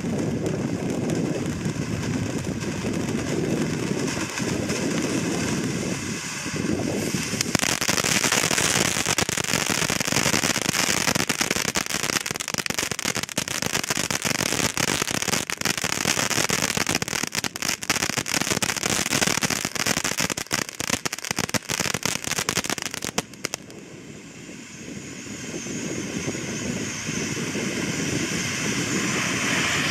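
Shogun 'Flaming Orbit' spinning fountain firework burning with a continuous rushing hiss of sparks. About seven seconds in it switches to a louder, brighter hiss thick with crackling as it spins and sprays sparks wide. This drops away suddenly about two-thirds of the way through, then the fountain's gushing hiss builds again.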